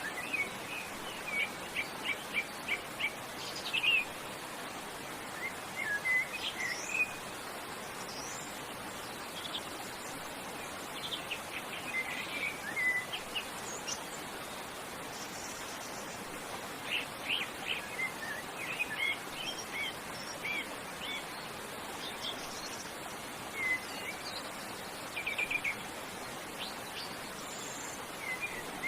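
Forest birds singing in clusters of quick high chirps and rapid trills every few seconds, over a steady rush of waterfall water.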